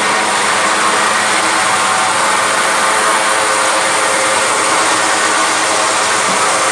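Mini blast furnace for smelting lead battery scrap running, a loud steady roar with a humming drone that does not change.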